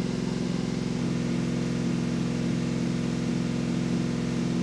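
Chevrolet 327 small-block V8 running steadily on its first run in over 30 years, after being pre-oiled and fitted with a new HEI distributor.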